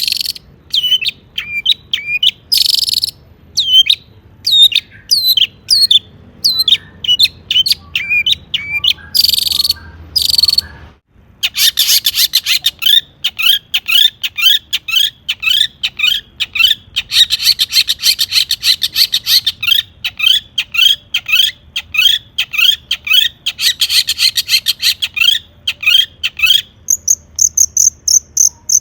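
Long-tailed shrike singing: a fast, loud series of repeated down-slurred whistled notes, broken by a few short harsh rasping bursts, with a brief break about a third of the way in. Near the end a steady, high, insect-like trill begins.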